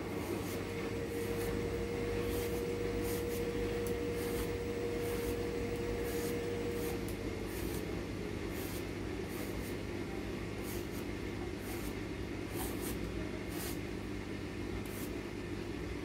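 Swivel vegetable peeler scraping the skin off a courgette in short strokes, one every second or so, over a steady hum with a faint held tone that stops about halfway through.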